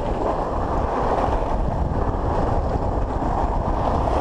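Steady rush of wind over the microphone mixed with the rumble of longboard wheels rolling fast on tarmac during a downhill run.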